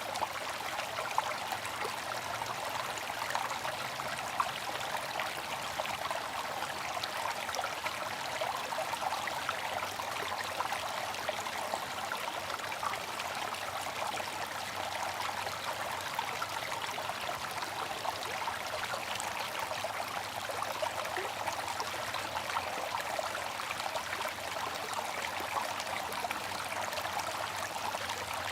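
Bamboo water fountain with water trickling and splashing steadily and without pause.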